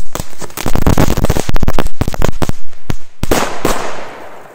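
Two crackle firecrackers planted in the ground going off. First comes a rapid, dense string of sharp pops lasting about two and a half seconds, then a few louder bangs with a hiss about three seconds in, which die away before the end.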